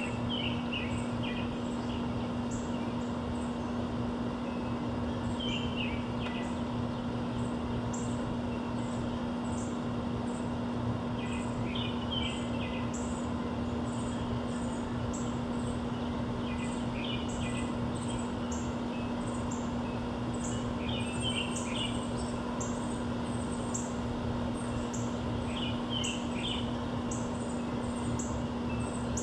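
Songbirds calling around a backyard feeder: a short chirping phrase repeats every five or six seconds, and thin high notes come over and over. A steady low hum and a haze of background noise run underneath.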